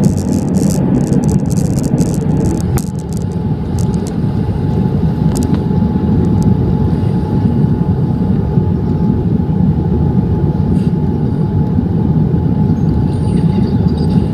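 Cabin noise of a Boeing 787-9 airliner on its landing approach: a steady rumble of the engines and the air rushing past, with a steady hum running through it. Light clicks and rattles come in the first couple of seconds.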